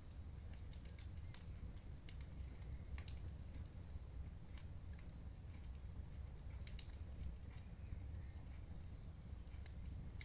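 Wood fire in a fireplace crackling: scattered sharp pops and snaps over a low steady rumble of the flames.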